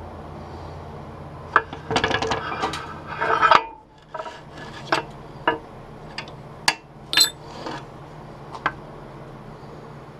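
Metal clattering and clinking as a timing gear cover and new front main seal for a 24-valve Cummins are handled and set up on a shop press, followed by a string of separate sharp clicks and knocks.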